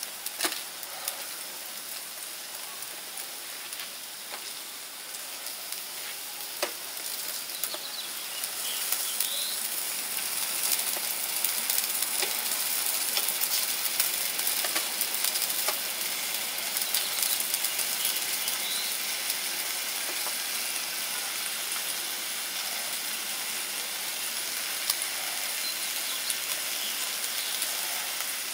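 Beef sizzling and crackling on a grill, a steady hiss that grows louder about eight seconds in, with two sharp clicks before that.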